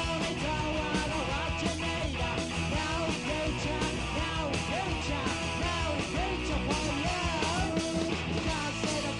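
Punk rock band playing loud and without a break: bass, drums with cymbals, and a sung vocal with a wavering pitch over the band.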